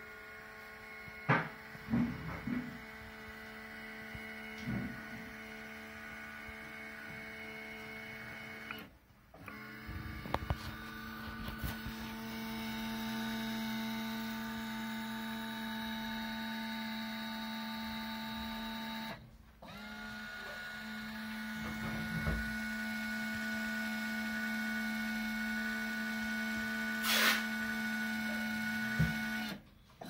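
Dentamatic 500MX ceramic furnace's lift drive running with a steady whine as it moves the firing platform on its toothed belt during a lift test after servicing. It stops and starts again twice, with a few clicks and knocks along the way.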